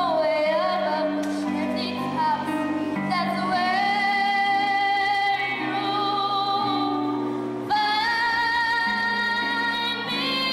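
A young singer holding long sung notes with vibrato over instrumental accompaniment, stepping up to a higher held note near the end.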